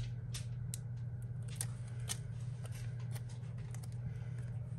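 Small clear plastic sticker being peeled from its backing and pressed onto a paper journal page: scattered small clicks and crinkles of the film, over a steady low hum.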